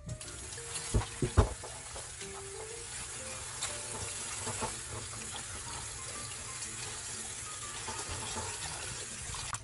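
Kitchen tap water running steadily into a plastic basin while mustard green leaves are rinsed by hand, with two sharp knocks about a second in.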